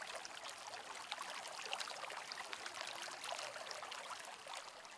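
Faint, steady trickling of running water, a fine crackly wash with no single strong event.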